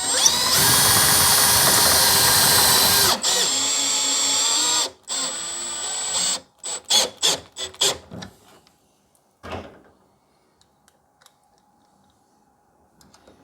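Drill driver driving self-tapping 7/16 screws into the garage door: the motor whines up to speed and runs for about three seconds, then two shorter runs, then a quick string of trigger pulses as the screws seat, with one last short burst.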